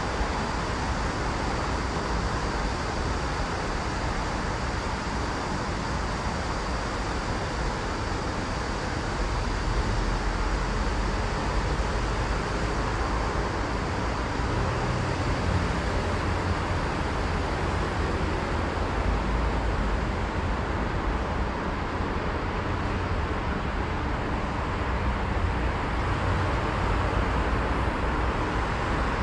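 Steady roar of city road traffic, with a deeper rumble that swells from about ten seconds in.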